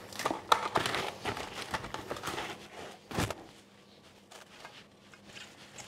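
Plastic cling wrap crinkling as it is pulled out and stretched over a stainless steel mixing bowl, with a louder knock about three seconds in, then softer handling.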